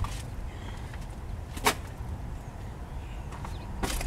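Objects being handled and shifted in a truck's back-seat area: a single sharp knock about a second and a half in and rustling near the end, over a steady low rumble.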